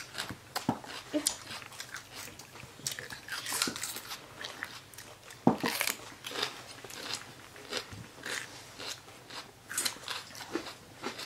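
People biting into and chewing raw green bell pepper: irregular crisp crunches.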